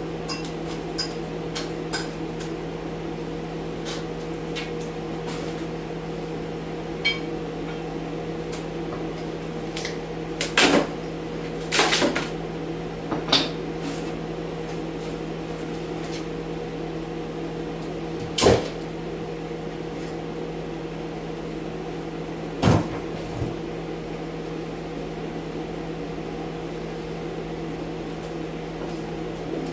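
Steady hum of a large air scrubber running in the next room, with five or so sharp cracks and knocks as wood strapping is pried up from the base of a cinderblock wall.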